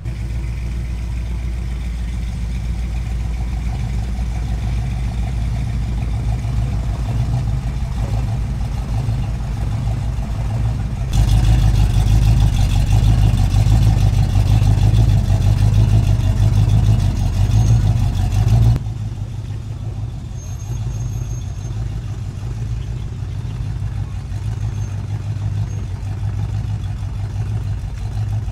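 Engines of classic cars and pickups running at low revs as they roll slowly past one after another. A louder engine passes from about 11 to 19 seconds in, where a rusty 1967–72 Chevrolet C10 pickup drives by; that stretch starts and stops abruptly.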